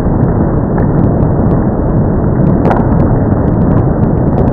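Rain falling on a wooden deck railing: a loud, steady, low rushing noise with scattered sharp ticks of single drops striking.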